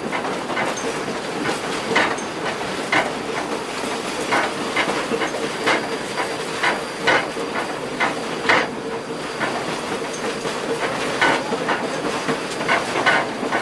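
Train rolling past, its wheels clicking irregularly over rail joints above a steady hiss of steam.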